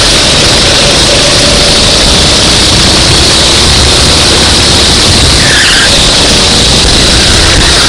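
Racing kart engine running at speed, very loud under a dense noisy haze; a short squeal comes about five and a half seconds in.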